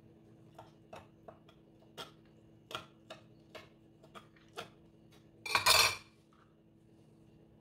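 Kitchen knife chopping soft roasted green chillies on a plastic cutting board: irregular sharp knocks of the blade on the board, roughly one or two a second. About five and a half seconds in there is a louder noise lasting about half a second.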